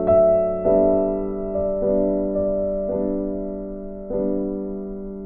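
Background music: gentle piano chords, a new chord struck every half second to a second or so, each ringing and fading.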